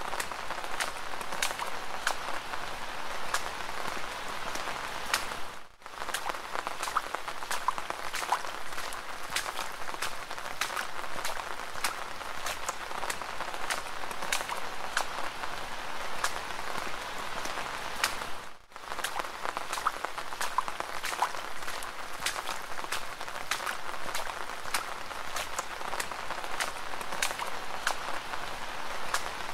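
Steady rain with a dense patter of individual drops ticking over a continuous hiss. The sound dips out for a split second twice, about 6 and 19 seconds in.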